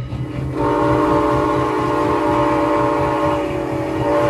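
Steam whistle of Canadian National 89, a 2-6-0 steam locomotive, blowing for a grade crossing: a short break, then a new long blast starting about half a second in and held steady, over the locomotive's running.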